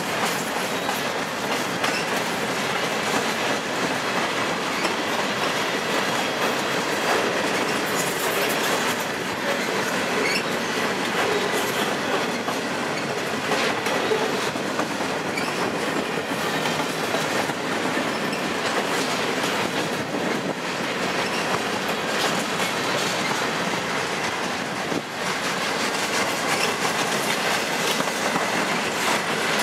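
Freight train of boxcars and covered hopper cars rolling past close by: a steady rumble and clatter of steel wheels on the rails, with wheel clicks through it.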